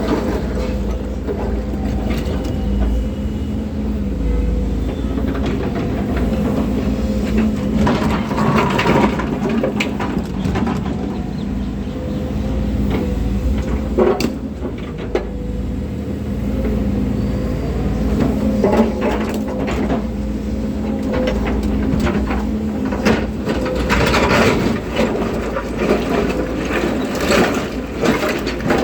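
Volvo excavator's diesel engine running steadily, with sharp knocks and clanks at intervals, clustered about a third of the way in and again near the end.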